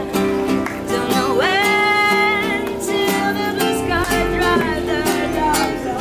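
A woman singing while strumming an acoustic guitar. Her voice slides up into a long held note about a second and a half in.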